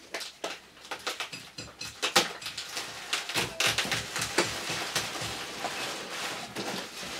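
Black plastic bag rustling and crackling as it is handled and pulled around a potted fig bonsai, with irregular crinkles and light knocks against a cardboard box.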